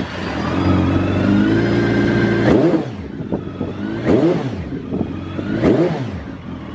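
Suzuki GSX1400's inline-four engine, fitted with a Wyvern aftermarket exhaust, running just after a start and blipped three times, the revs climbing and falling back quickly each time. The revs rise cleanly.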